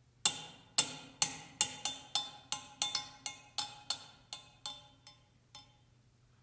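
A frying pan struck with thin sticks, ringing with a metallic tone: a run of about sixteen quick strikes that start loud and grow softer and farther apart until they die away.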